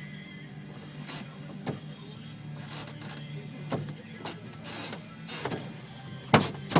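Van door handle and latch clicking and clunking over and over as the door is tried with the child lock on, so the door stays shut. Under it runs a steady low hum, and the loudest clunks come near the end.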